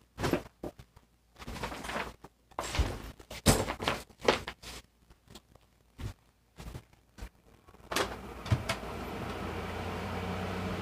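Irregular knocks, thumps and clatter as someone moves around and pulls a chair up close in front of the phone. From about eight seconds in, a steady low hum sets in.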